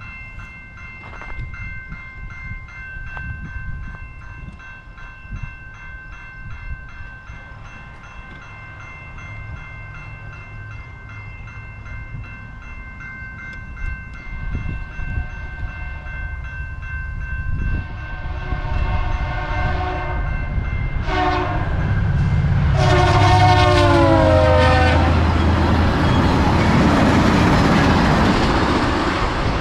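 Level-crossing warning bell ringing steadily as a VIA Rail passenger train led by an F40PH-2 diesel locomotive approaches. The horn sounds a long blast, a short one and a final long one whose pitch drops as the locomotive passes. The train's passing rumble and wheel noise follow and grow loud.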